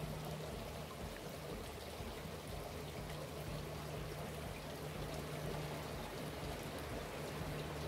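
Steady rushing background noise with a faint, steady low hum running under it.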